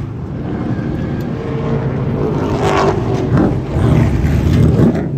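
Late model race car engine running, its pitch rising and falling as it is revved from about halfway in.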